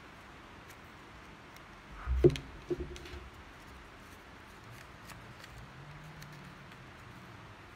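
Hands handling stiff paper on a wooden table, with faint ticks and rustles. About two seconds in there is a sharp knock on the tabletop, followed by a smaller one, which fits a plastic glue bottle being set down.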